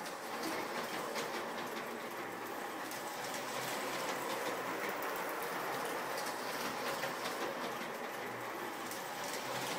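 A 40-year-old LGB garden-scale model train running around an oval of track: a steady running noise with fine rapid clicking from its wheels on the rails.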